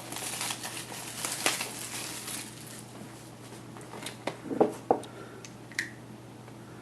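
Plastic wrap crinkling as a trading card box is opened by hand, followed by a few sharp clicks and taps of the cardboard being handled.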